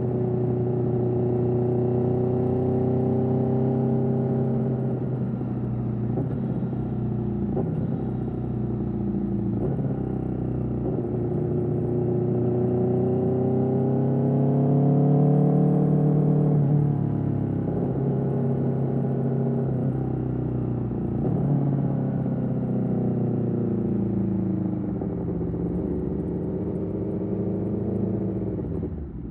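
2021 Aprilia Tuono V4's V4 engine through an Austin Racing GP1R exhaust, running continuously with its pitch rising and falling gently as the throttle changes. It is loudest about halfway through, and near the end the pitch falls and the sound drops away as the throttle closes.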